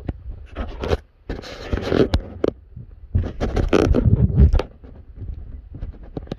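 Camera handling noise: the phone's microphone scraping, rubbing and knocking as it is carried and moved. Two longer rough, rumbling stretches with sharp knocks in between.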